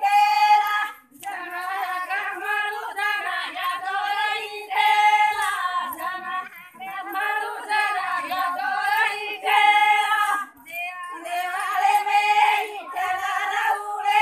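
A group of women singing a Banjara devotional song (bhakti geet) together in short repeated phrases, with hand clapping as they dance.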